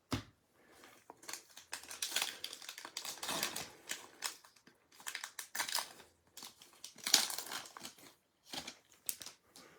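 Plastic-foil wrapper of a sports card pack being torn open and crinkled, in irregular crackling bursts.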